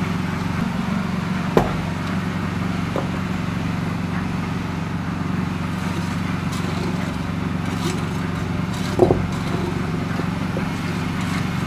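An engine running steadily at an even speed, with two sharp knocks, one about a second and a half in and one near nine seconds.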